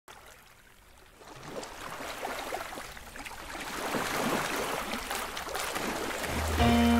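Outdoor water and wind noise fading in and swelling, with scattered small crackles through it. Music with a held chord and a deep bass comes in just before the end.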